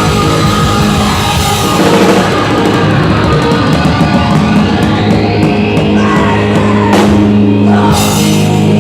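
Live rock band with drums, distorted guitars and bass holding a chord through the closing bars of a song. The drum kit plays dense fills, with two big cymbal crashes about seven and eight seconds in.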